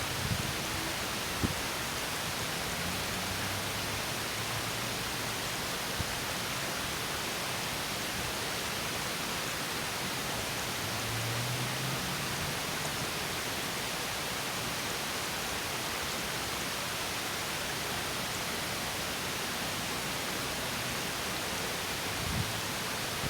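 Small stream spilling over a mini waterfall: a steady, even rush of falling water, with one light knock about a second and a half in.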